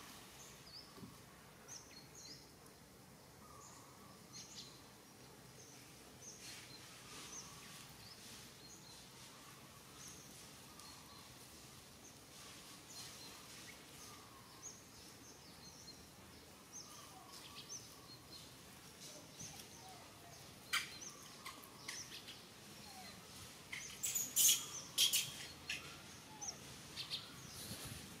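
Birds chirping in short, scattered calls over quiet outdoor background noise. Near the end there is a burst of sharp crackles and clicks, the loudest sounds here.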